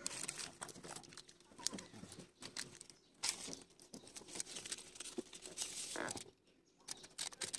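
Aluminium foil tape crinkling and crackling as it is pressed and rubbed down by hand, in many small irregular crackles. It goes briefly quiet a little after six seconds in.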